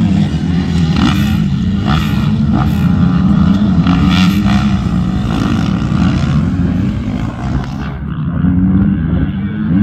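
Several motocross bikes racing together, their engines revving up and down as the riders accelerate out of a turn and past.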